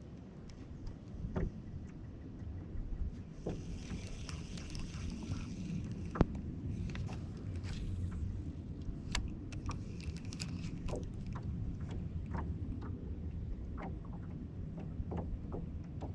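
Wind buffeting the microphone on a small fishing boat: a steady low rumble, with scattered knocks and clicks of gear on the boat and a sharp click about six seconds in.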